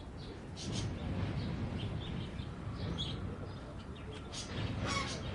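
Bird calls: short chirps scattered through, with a louder call about five seconds in, over a steady low rumble of background noise.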